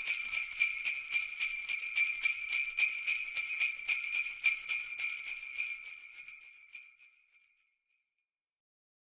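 Jingle bells shaken in a quick, even rhythm of about four shakes a second, ringing high and bright, then fading out and stopping near the end.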